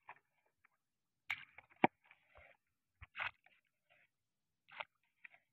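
Sparse handling noises from a fisherman setting a baited hook line from a small wooden boat: a few brief rustles and taps of line and hooks, with one sharp knock a little under two seconds in as the loudest sound.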